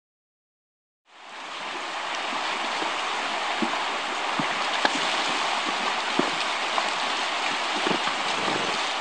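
Shallow stream rushing over stones, fading in about a second in, with occasional short splashes from Icelandic horses wading through the water.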